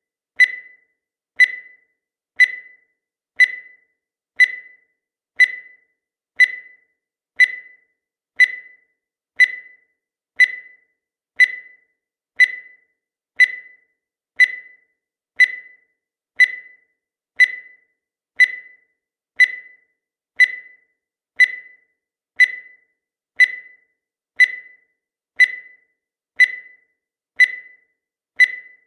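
Countdown timer sound effect: a short, high electronic beep once every second, each dying away quickly, in a steady even rhythm.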